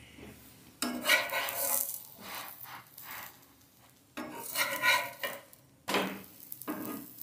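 Metal spatula scraping against a hot iron tawa, working under a frying gourd-and-batter pancake, in scraping bursts about a second in and again from about four to six seconds, with a faint sizzle between.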